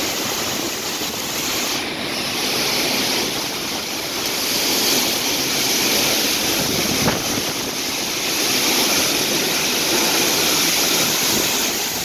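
Derecho windstorm winds rushing through thrashing trees with driving rain, a loud, steady rush that rises and falls a little with the gusts. There is one brief knock about seven seconds in.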